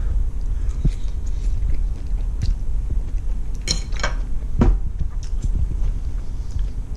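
A person chewing a mouthful of stir fry, with a few sharp clicks of a fork or utensil against the dish about four seconds in, over a steady low hum.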